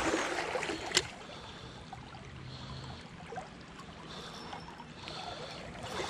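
Creek water running steadily over a shallow gravel bed, with a single sharp click about a second in.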